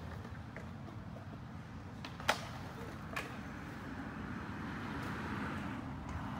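Skateboards rolling on concrete, a steady rumble, with two sharp clacks of a board hitting the ground, about two and a quarter and three seconds in.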